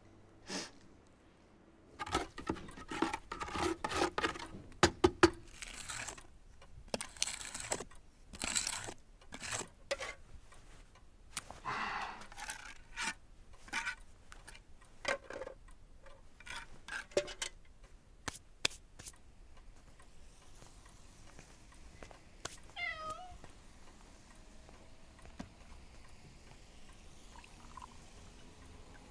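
A long run of knocks and scrapes as plaster is picked and broken off a wall. Later a cat meows once, a short wavering call, about three-quarters of the way through.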